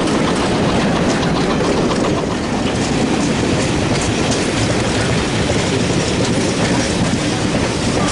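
Railway train running along the track: a steady, loud rumble of wheels on rail with a light clickety-clack.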